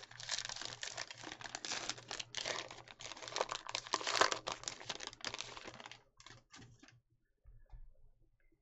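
Trading card pack wrapper crinkling and tearing open as the cards are pulled out, a dense run of fine crackles that dies away about six to seven seconds in.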